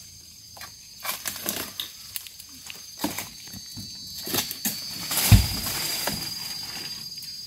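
Oil palm harvesting dodos (pole chisel) jabbing and cutting at the base of palm fronds and fruit bunches: scattered knocks, scrapes and frond rustling, with one heavy thud about five seconds in. A steady insect buzz runs underneath.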